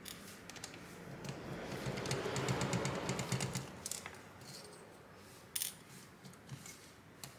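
Precision screwdriver turning out small screws from a graphics card's fan shroud: a run of fine metallic ticking and scraping for about three and a half seconds, then a few scattered light clicks, one sharper than the rest past the middle.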